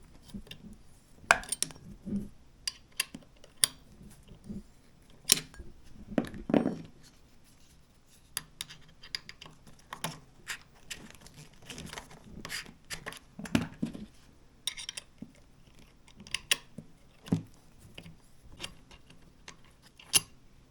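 Irregular metallic clicks, clinks and knocks of hand tools and screws as screws are worked out of an electric scooter's stem.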